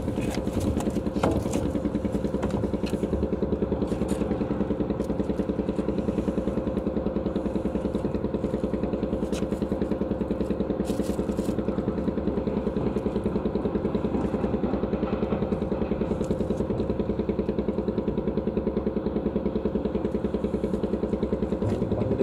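An engine idling steadily, a regular low pulsing beat that does not change, with a few faint clicks over it.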